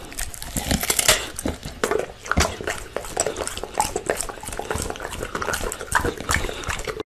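English bulldog crunching and chewing a raw carrot right up against a microphone: a dense, irregular run of crisp crunches and mouth clicks. It cuts off suddenly near the end.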